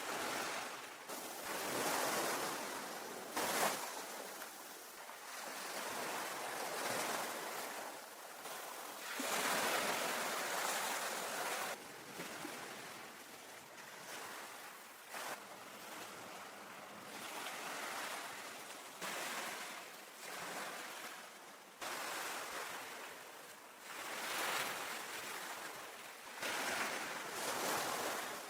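Sea waves washing onto a beach, the surf swelling and falling away every few seconds.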